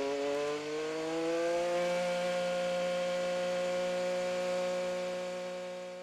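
An Indy car's 2.2-litre twin-turbo V6 at full throttle, heard from on board. Its pitch climbs steadily for the first two seconds as it pulls up through the revs, then holds an almost constant high note down the straight.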